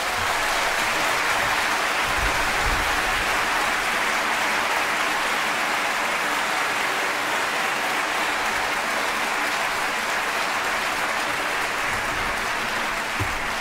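An audience applauding steadily at the end of a live performance.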